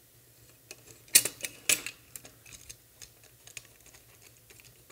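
Light clicks and taps of small steel nuts, bolts and aluminium plates being handled as fingers thread nylon-insert lock nuts onto the bolts, with two sharper clicks a little over a second in.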